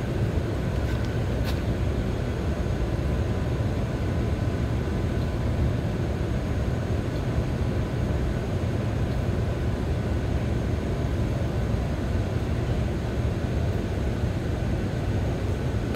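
Steady low rumbling background noise with faint thin high tones running through it, unchanging throughout, and one small click about a second and a half in.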